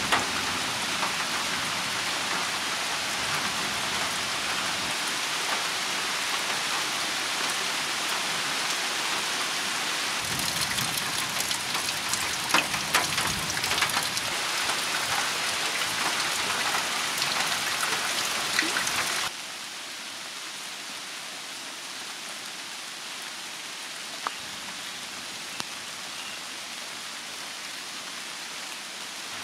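Steady hiss of falling water, like rain, with scattered sharper drop-like taps. About 19 seconds in it cuts down abruptly to a quieter hiss, with two faint ticks near the end.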